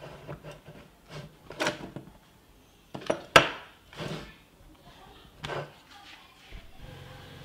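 Handling noise from a plastic battery pack and a charger plug on a wooden workbench: a series of separate taps and clicks, the sharpest a little over three seconds in.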